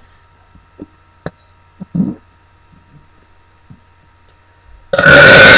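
A young woman's loud, deliberate burp, forced out on purpose, beginning near the end and lasting over a second. Before it, only a few faint clicks.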